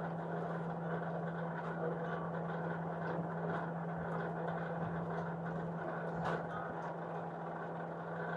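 A steady mechanical hum, holding one low tone, with a few faint clicks over it.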